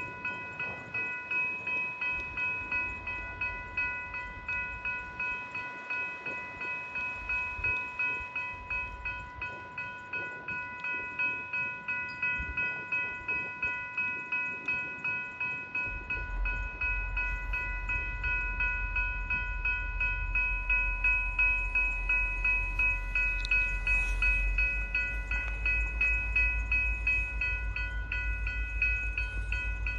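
Railway level-crossing bell ringing over and over at an even pace. From about halfway through, the low rumble of an approaching train rises beneath it and grows louder.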